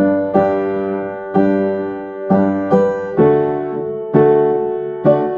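Piano playing a slow hymn in four-part chords, the opening prelude, with the chords struck about once a second and held ringing under the sustain pedal, plus a few quicker passing notes between.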